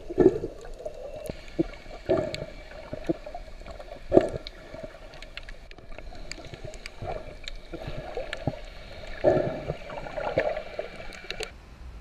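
Underwater sound through a GoPro's waterproof housing: muffled bubbling and gurgling with scattered clicks and a few louder knocks. A faint steady whine runs under it and cuts off near the end.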